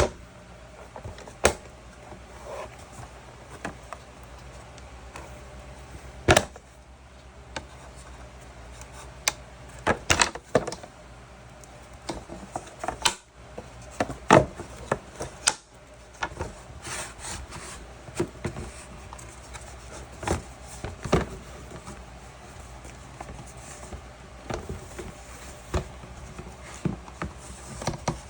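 Irregular knocks, clicks and light clatter of wooden parts and tools being handled, a few sharp ones standing out, over a low steady hum.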